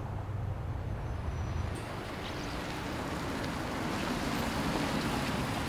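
A car running, a steady low hum under road and engine noise; about two seconds in the low hum fades and a broader hiss takes over.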